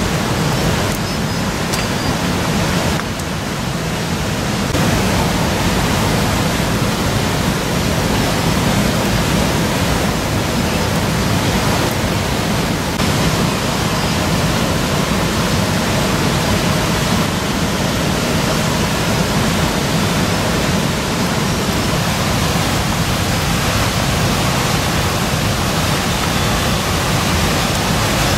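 Steady, loud rushing noise spread evenly from low to high pitches, with no distinct events; it dips briefly about three seconds in, then holds level.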